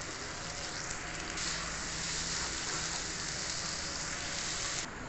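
Onion-tomato masala with spices sizzling as it fries in oil on a tawa: a steady frying hiss. It grows louder about a second and a half in and drops back abruptly near the end.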